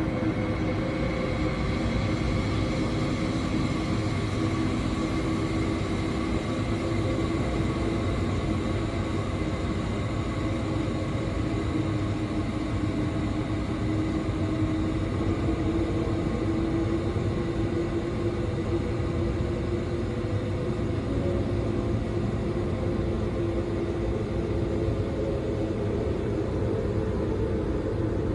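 Horror sound-effect ambience: a steady, dark drone of low rumble with several held tones layered over it, drifting slowly in pitch and never breaking.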